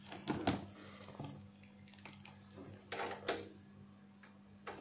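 Scattered light clicks and knocks from handling bench test gear: test-lead plugs being pushed into a digital multimeter's jacks and a hand working a function generator's front panel. Under them runs a steady low hum.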